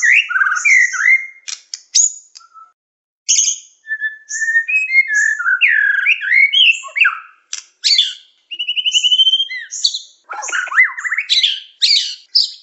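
White-rumped shama (murai batu) singing a varied, continuous song of loud whistles, slurred glides and quick chattering notes, with a brief pause about three seconds in and a rapid trill of evenly repeated notes around the middle.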